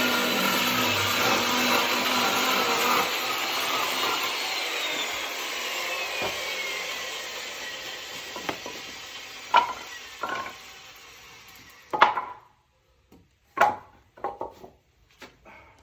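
Electric chainsaw running, then let off: the motor and chain wind down with a slowly falling whine and fade over several seconds. A few sharp wooden knocks follow near the end.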